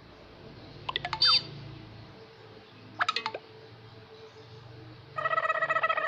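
Sound-effect audio file playing back: two short bursts of quick whistle-like pitch glides, about a second and about three seconds in, then a buzzy, rapidly pulsing tone for about a second and a half near the end.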